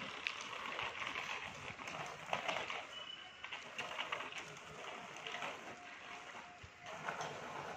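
Birds calling over steady outdoor street ambience, with a brief high chirp about three seconds in and a short steady tone a little later.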